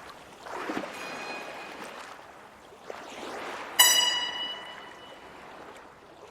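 Uneven rushing, water-like noise that swells and ebbs, with a single bright note struck about four seconds in that rings out and fades.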